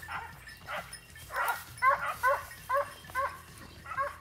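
Hunting hound barking over and over in short, evenly spaced barks, about two a second.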